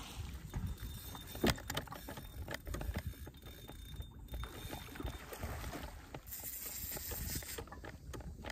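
Water lapping against a plastic kayak hull, with low wind rumble on the microphone and scattered knocks on the hull. The loudest knock comes about a second and a half in. A brief high hiss follows a little past the middle.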